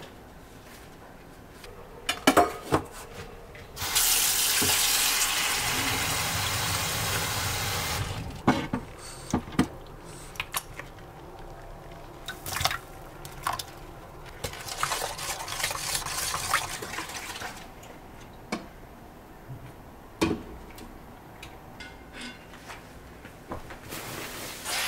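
Water running from a tap into a sink for about four seconds, with short knocks and clatter before and after. A second, softer stretch of running water comes later.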